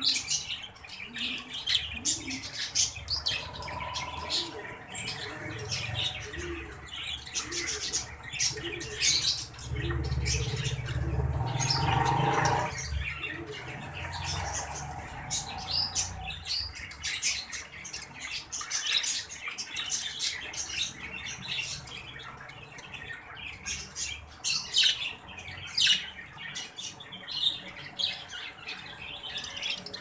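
Caged exhibition budgerigars chattering, with a steady stream of short, quick chirps and squawks. Midway a low rumble swells and fades again.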